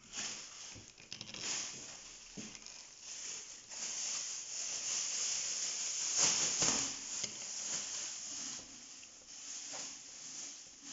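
Plastic packaging rustling as hands handle a small plastic toy doll and its parts, an uneven rustle that grows loudest a little past the middle.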